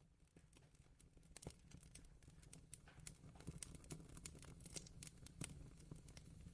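Fireplace fire crackling, with many irregular sharp pops over a low rumble, fading in from quiet and getting steadily louder.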